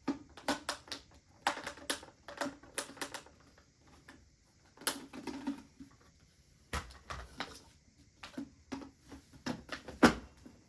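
Plastic parts of a portable air conditioner window vent kit being handled: irregular clicks and knocks as the exhaust hose coupler is fitted onto the hose, with heavier knocks about seven and ten seconds in.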